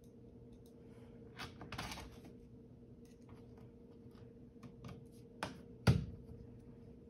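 A screwdriver working the small screws of a Dell Inspiron 13 7000 laptop's bottom cover: scattered light clicks and scrapes, a short rattle about one and a half seconds in, and one sharp knock just before six seconds in, the loudest sound.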